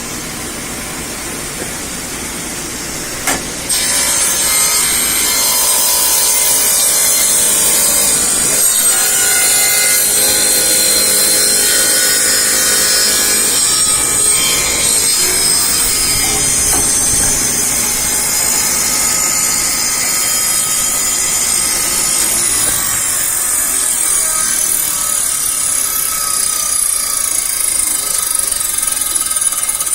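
Ridgid 10-inch table saw running with a steady high whine, stepping up louder after a click about four seconds in and staying loud as the blade cuts through wood.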